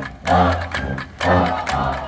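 Marching band brass, trumpets over sousaphones, playing short held chords about once a second, with sharp clicks marking the beat.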